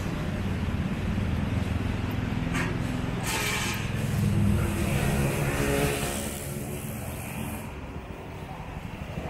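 Busy city street traffic: motor vehicle engines running and passing close by.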